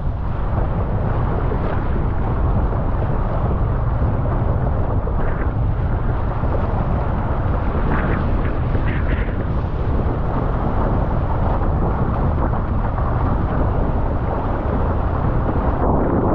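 Wind buffeting a GoPro's microphone while windsurfing in gusty wind: a loud, steady rush with the wash of water beneath it and a few brief louder gusts or splashes about halfway through.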